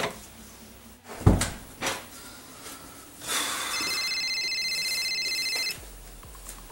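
Two thumps, the first loud, about a second in, then a mobile phone's electronic ringtone trilling for about two seconds before it cuts off, as the call is answered.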